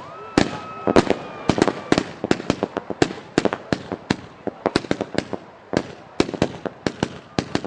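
Fireworks going off: a rapid, irregular string of sharp bangs, several a second, without a break.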